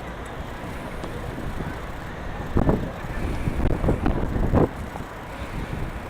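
Wind buffeting the microphone in gusts, starting about two and a half seconds in, over a steady low rumble.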